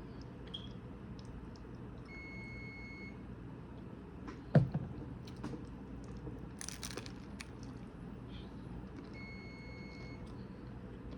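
Two electronic beeps, each held about a second and about seven seconds apart. A single sharp knock comes between them, about halfway through, then a brief rustle.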